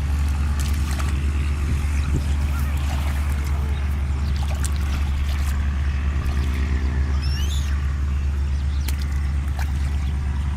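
A small engine running steadily at a constant speed, with a few light clicks and a brief high chirp about seven seconds in.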